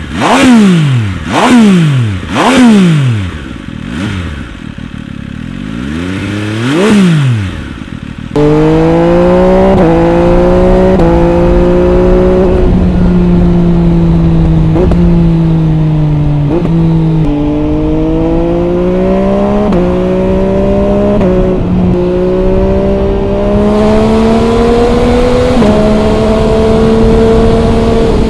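MV Agusta Brutale 800 RR's three-cylinder engine through an MV Agusta Corse trio exhaust, revved in a series of quick throttle blips that rise and fall. About eight seconds in it cuts to the bike riding under load: a steady engine note that steps abruptly at gear changes, with wind noise over it.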